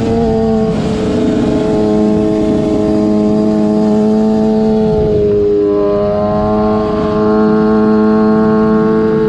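Sport motorcycle engine heard from onboard, running at a steady speed through a long corner. Its note dips slightly about five seconds in and picks up again a couple of seconds later, over wind rush on the microphone.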